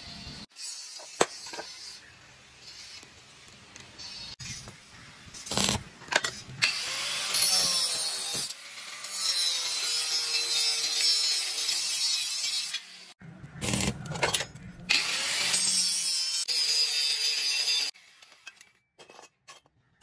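Handheld angle grinder with a cutting disc cutting steel plate, a loud, hissing grind in two long runs with a short break between them. Before it, quieter arc-welding crackle and a few taps.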